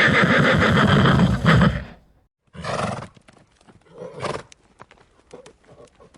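A loud, drawn-out animal call lasts about two seconds and stops. After a brief gap come short horse calls, about three, spread through the rest, with the sharp clip-clop of hooves.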